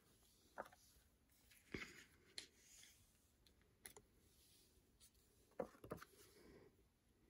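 Faint handling sounds of photo cards being slid into clear plastic binder sleeves: a handful of soft clicks and plastic crinkles, scattered through.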